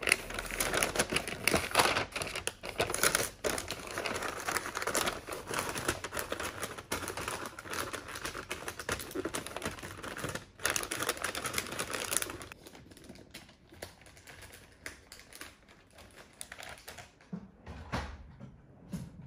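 Stiff wrapping paper crinkling and rustling as it is cut with scissors and folded around a parcel, a dense crackle. It dies down about two-thirds of the way through to faint scattered ticks.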